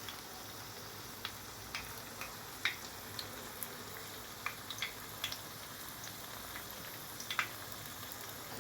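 Breadcrumb-coated chicken breast pieces shallow-frying in oil on a low flame: a steady faint sizzle with irregular small pops and crackles.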